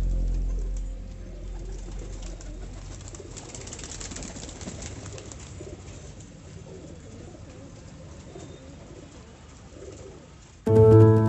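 Domestic pigeons cooing, low wavering calls over a light outdoor hiss. Background music fades out in the first second and starts again suddenly near the end.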